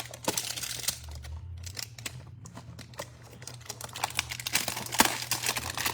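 Trading-card packaging crinkling and cards being handled, a busy run of small clicks and rustles.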